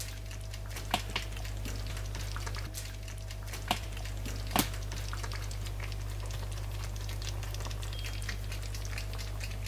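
Hot chicken and vegetable stew in a pan crackling softly, with a few sharper pops from bubbles, over a steady low hum.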